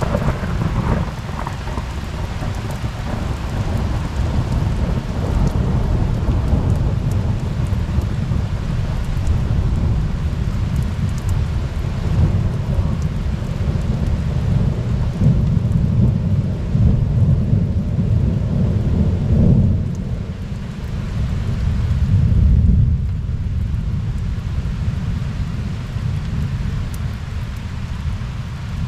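Thunder from a close lightning strike, starting suddenly and rolling on in a long, deep rumble for nearly half a minute, swelling again about twenty seconds in, over steady rain.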